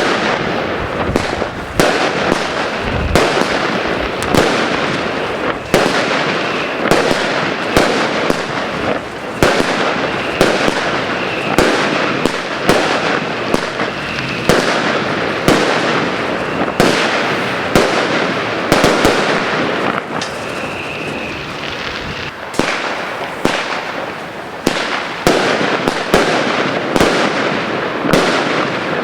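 Consumer fireworks from an assortment pack going off: a steady dense crackle with sharp bangs about once a second, and a faint whistle now and then.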